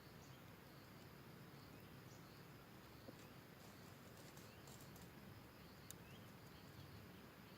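Near silence: faint forest ambience with scattered faint high chirps and a few small clicks.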